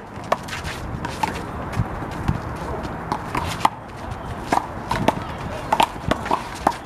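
A rubber handball rally: a dozen or so sharp, irregular smacks as the ball is struck by hand and bounces off the wall and pavement, with shoes scuffing on the court in between.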